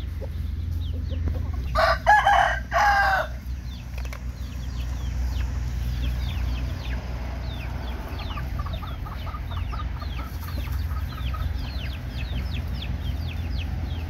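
A rooster crows once about two seconds in, the loudest sound, in two strong pitched parts. Short high chirps run throughout, and a quick run of chicken clucks comes a little past the middle.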